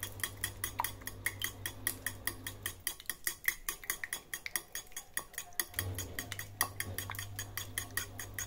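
A metal fork beating raw eggs in a glazed ceramic bowl: a quick, regular clinking of the tines against the bowl, about four or five strokes a second.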